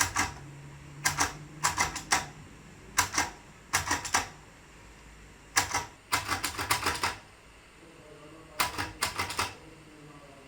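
Perkins Brailler being typed on: clusters of sharp mechanical key strikes, a few quick strokes at a time, with short pauses between.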